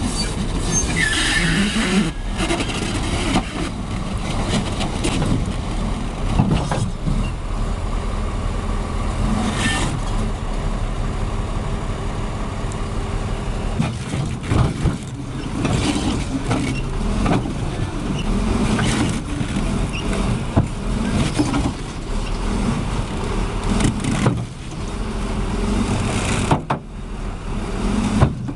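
Heavy vehicle engines running, with scattered clanks and knocks throughout and a brief break near the end.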